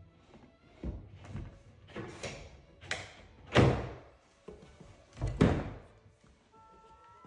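Kitchen plinth board being pushed and knocked into place under base cabinets by hand: a series of about six separate thuds and knocks, the loudest two about three and a half and five and a half seconds in. Background music comes in near the end.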